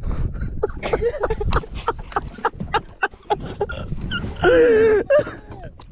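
A bass being landed with a net beside a fishing boat: rapid, irregular knocks and slaps. About four and a half seconds in comes a loud, wavering shout from a man.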